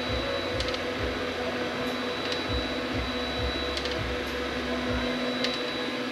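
A 3D printer at work: its stepper motors whine and buzz in notes that change with each move, over a steady hum, with small ticks now and then.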